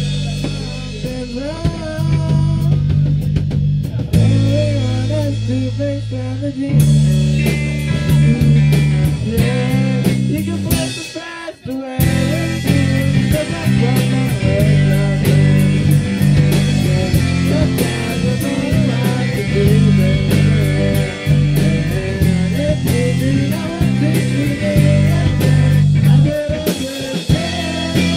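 Live rock band playing an instrumental passage on electric guitar, bass guitar and drum kit. The band drops out for a moment about eleven seconds in, then comes back in.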